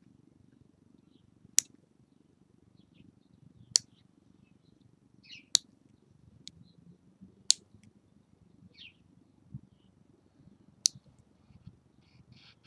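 Metal lever nail clipper snipping fingernails: five sharp clicks, roughly two seconds apart with a longer pause before the last, over a faint low steady hum.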